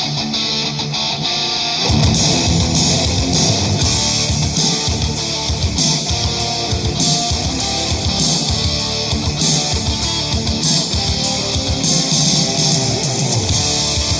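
Guitar-driven song played loud through a pair of custom-built Bluetooth speakers; about two seconds in, drums and bass come in under the guitar.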